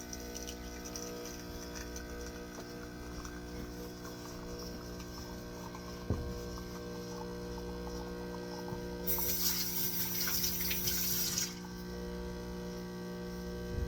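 Sumsaty home espresso machine pulling a double shot: its pump hums steadily as water is pushed through the grounds. A short knock comes about six seconds in, and a loud hiss lasts a couple of seconds from about nine seconds in.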